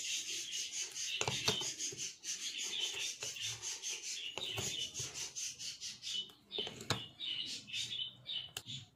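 A metal spoon stirring thick, wet batter in a glass bowl: quick repeated scraping and rubbing strokes against the glass, with a few sharper knocks of the spoon on the bowl.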